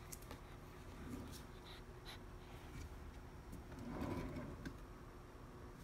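Quiet room with a few faint ticks, and a brief soft rustle about four seconds in as a cat shifts and climbs in a wooden drawer.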